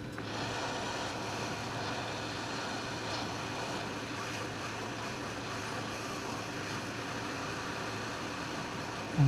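Hot-air rework station blowing steadily, reflowing a reballed eMMC chip onto a phone motherboard.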